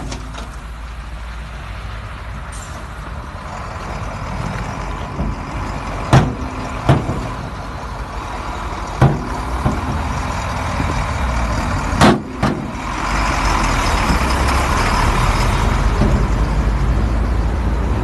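Dump truck engine running steadily, with about five sharp knocks spread through the first two-thirds. The running noise grows louder about two-thirds of the way in.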